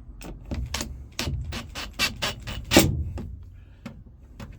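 A string of irregular sharp clicks and knocks, several a second, from bolts and tools being handled while the back seat is bolted in. The loudest knock comes a little under three seconds in.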